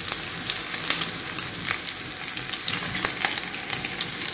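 Chunks of pork, fried until browned and crisp, sizzling and crackling in their own rendered fat in a nonstick frying pan, with a spatula scraping through the pan as the pieces are lifted out.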